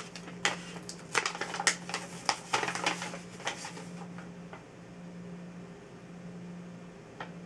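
Crinkling and rustling of a shower cap's packaging being handled and opened: a run of quick, sharp crackles over the first three and a half seconds, then only a steady low hum.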